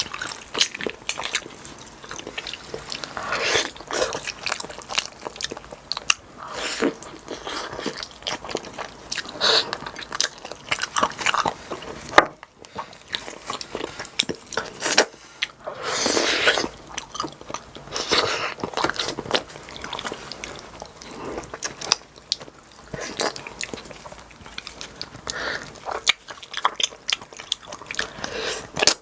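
Close-miked chewing and biting of pork back-bone stew with rice: irregular short clicks and mouth noises, a sharp click about twelve seconds in.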